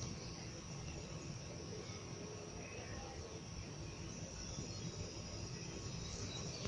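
Steady chorus of insects, crickets among them, with a few faint short bird calls.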